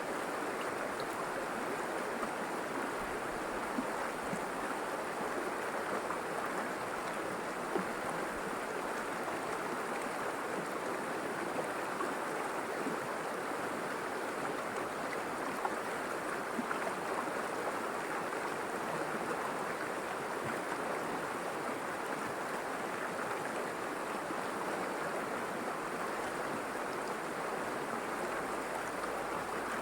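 River water flowing steadily over rocks, a continuous even rush with small splashes and gurgles.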